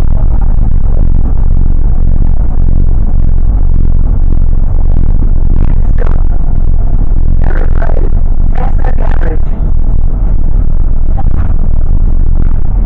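Cabin noise inside a moving Go North East double-decker bus: steady engine and road rumble, loud, with a few brief rattles or clatters around the middle.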